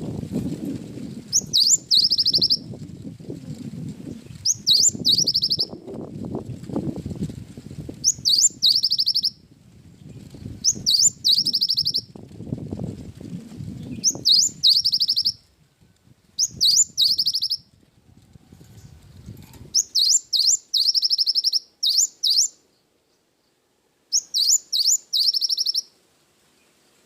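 Cinereous tit (gelatik batu) singing short, high phrases of a few quick sweeping notes ending in a fast trill, repeated about every two to three seconds. A low rumbling noise lies under the song for roughly the first twenty seconds.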